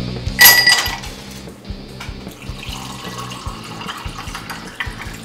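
Apple juice poured into a stemmed glass over ice, a steady splashing trickle through the second half, after one loud ringing clink about half a second in. Background music plays underneath.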